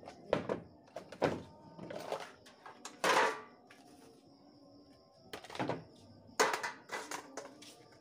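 Knocks and clatters of stripped rice-cooker parts, metal and plastic housings and lids, being handled and set or tossed down during dismantling. There are about eight separate hits, the loudest about three seconds in, with a faint steady high-pitched tone behind them.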